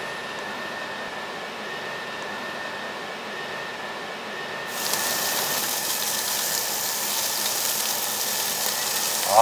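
A steady hum with a faint high whine, then about five seconds in a slab of pre-grilled, bone-in black pork belly goes onto a hot tabletop grill and starts sizzling loudly.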